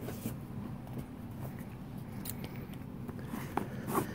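Scissors cutting into a small cardboard box, a few sharp snips and scrapes, mostly in the second half, over a low steady room hum.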